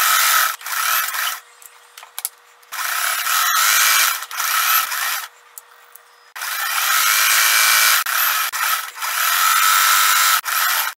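Sewing machine stitching through layered cotton fabric, running in stop-and-start spurts of one to four seconds with short pauses between them as the pleats are sewn down.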